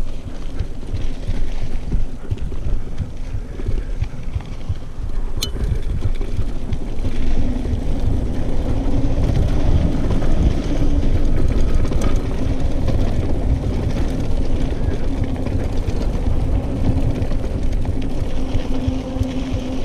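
Mountain bike rolling fast down a dirt trail: wind buffeting the action camera's microphone over the rumble and rattle of the tyres and frame on the rough ground. A low steady hum joins partway through.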